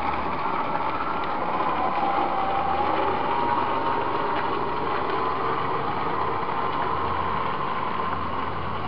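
Battery-electric garden tractor driving off: its electric drive gives a thin, steady whine that wavers slightly in pitch over a hiss of background noise. It is not loud.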